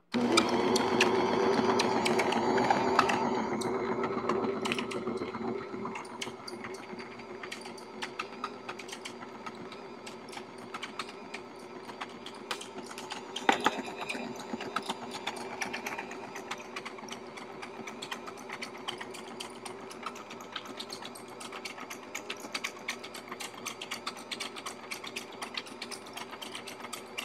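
Bosch stand mixer running, its beaters churning a stiff powdered-sugar candy dough: a steady motor hum with a constant light clicking rattle. It is louder for the first few seconds, then settles quieter.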